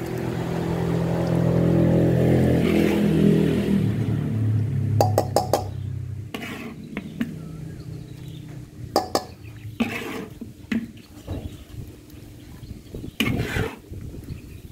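A low engine drone passes, its pitch falling over the first several seconds. After that, a metal ladle scrapes and clinks against a wok and a steel bowl, with a few sharp knocks as chicken is scooped out.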